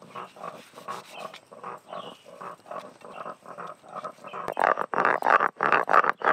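Hands rubbing salt and turmeric into raw fish pieces on a steel plate, a soft wet squelching repeated two or three times a second. About four and a half seconds in, louder rhythmic scraping strokes take over: a stone roller grinding paste back and forth on a flat grinding stone (shil-nora).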